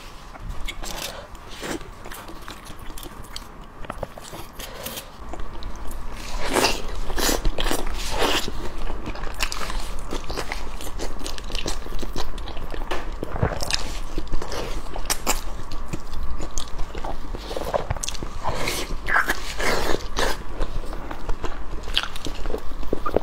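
Close-miked biting and chewing of braised pig skin in chili sauce: many short sharp mouth clicks, getting busier and louder about five seconds in.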